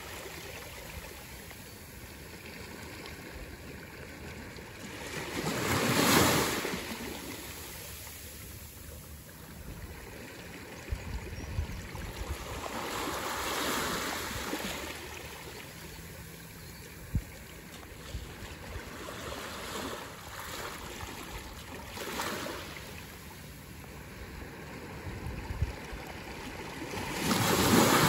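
Small sea waves breaking on a beach and washing up the shore, the surf swelling and fading every seven to eight seconds, loudest about six seconds in and again at the end. A few short clicks in between.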